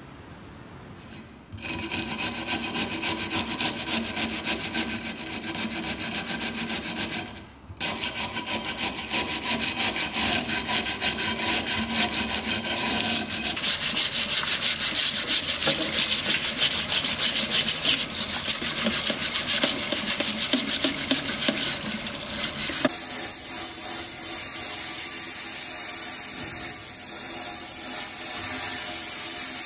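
A stiff bristle brush scrubbing the rusty metal bread-cutter frame under running tap water, in fast, even strokes, with a brief pause about seven seconds in. For the last quarter a sandblaster gives a steady hiss as it blasts the frame clean in a blast cabinet.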